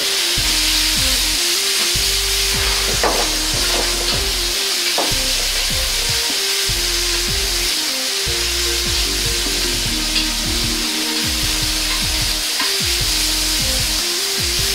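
Halved cherry tomatoes sizzling in a hot wok over a gas flame, a steady hiss, as a metal ladle stirs and scrapes them, with a few clinks of the ladle against the wok.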